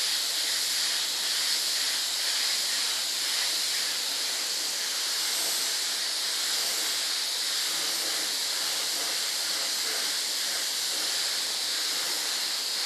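Small gravity-feed paint spray gun hissing steadily as compressed air atomises thinned paint.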